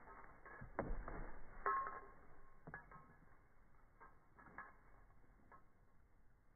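Faint, scattered clicks and knocks from a German Shepherd nudging and mouthing a rubber toy football on dry grass, with a brief squeak about two seconds in.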